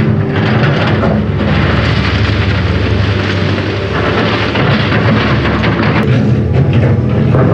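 Steady heavy rumble of a hydraulic excavator's diesel engine running, mixed with a loud rushing roar of wind buffeting the microphone; the roar eases briefly about a second in and again near the end.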